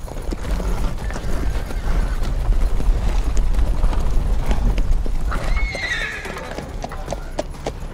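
Several horses' hooves clopping on dry ground over a heavy low rumble as a mounted party moves off. A horse whinnies about five and a half seconds in.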